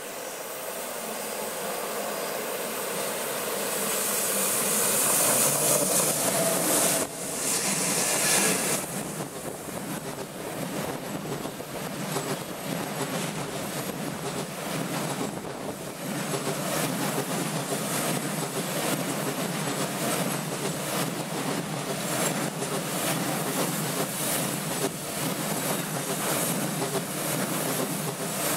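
Intermodal freight train carrying shipping containers and swap bodies, coming out of a tunnel and passing close by. Its rumble swells over the first few seconds to a loud rush with hiss, loudest about five to eight seconds in. The wagons then roll past in a steady rumble with rapid wheel clicks.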